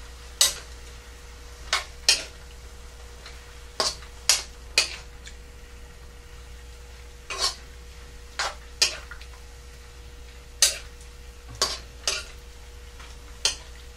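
Metal spoon clinking and scraping against a wok while stirring pepper steak, in sharp, irregular knocks roughly once a second, over a faint steady hiss.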